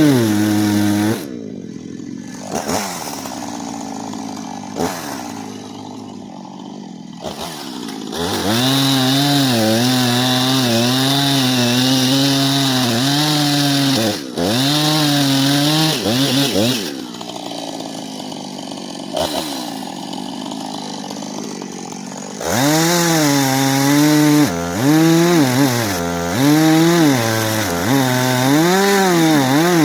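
Gas chainsaw cutting wood, its engine pitch wavering under load, dropping twice to a quieter idle between cuts.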